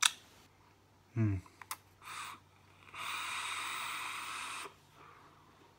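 A drag on a box-mod vape: a steady hiss of air drawn through the atomizer, lasting under two seconds, about three seconds in. Before it come a sharp click, a brief bit of voice and a few small clicks.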